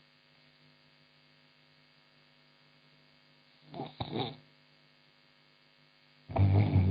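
A woman snoring in her sleep: one snore about four seconds in and a louder one near the end, over a steady low electrical hum.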